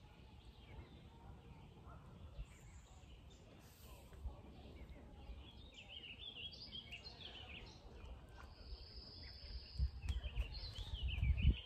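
Lakeside ambience of birds chirping on and off, with a steady high buzz for about a second past the middle. A low rumble on the phone's microphone grows stronger near the end.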